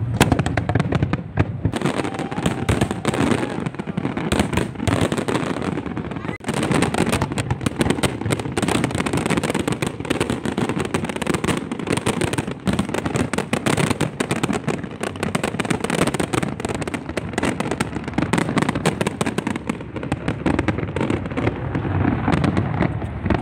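Aerial fireworks show: shells bursting in rapid succession, a dense, unbroken run of bangs.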